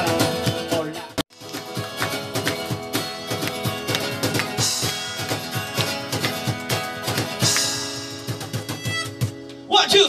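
Live acoustic band music: strummed acoustic guitar over a steady cajon beat. The music drops out for an instant about a second in, and changes abruptly near the end.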